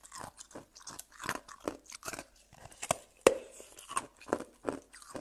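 Ice being crunched and chewed close to the microphone: a string of sharp, irregular crunches, about two to three a second, the loudest about three seconds in.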